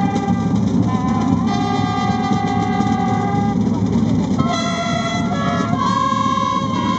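Military wind band playing a slow tune in long held brass chords, the notes changing every second or two.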